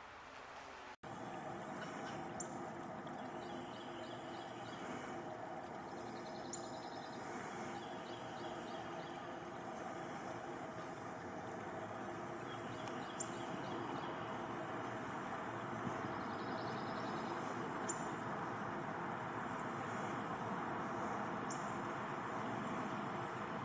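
Insects shrilling outdoors: a steady, very high buzz that breaks off briefly now and then, starting abruptly about a second in, with a short rising chirp every few seconds and faint rapid trills beneath.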